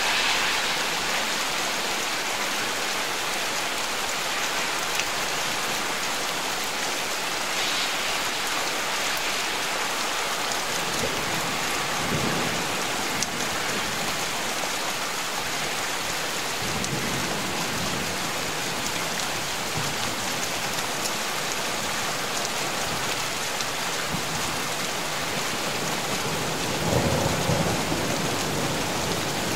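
Steady rain falling during a thunderstorm, with deep rolls of thunder rumbling about a third of the way in, again past the middle, and loudest near the end.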